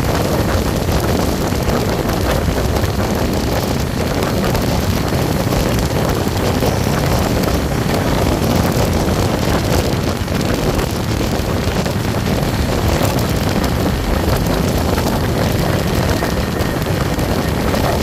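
Steady rush of wind on the microphone over the running noise of an Indian Railways passenger train travelling at speed, heard from a camera held out beside the moving coach.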